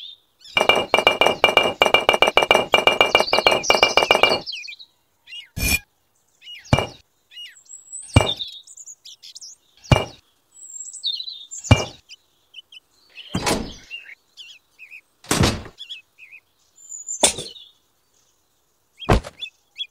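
Miniature clay bricks clacking as they are handled: a fast clattering run of clicks for the first few seconds, then single sharp clacks every second or two as bricks are set down on the trailer bed. Birds chirp faintly between the clacks.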